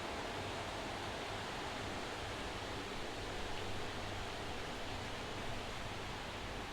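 Steady rain shower falling, an even hiss with no single drops or gusts standing out.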